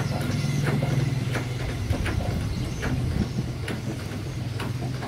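An idling engine's steady low hum, with a light click repeating about every three-quarters of a second.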